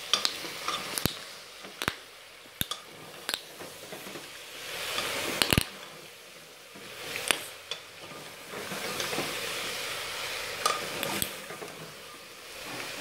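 Metal spoon stirring mutton frying in a pot, knocking and scraping against the pot's sides at irregular moments, over a sizzle that swells a couple of times. The meat is being fried with garlic-ginger and tomato paste.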